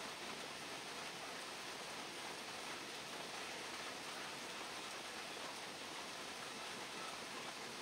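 Steady heavy rain falling, an even hiss with no breaks.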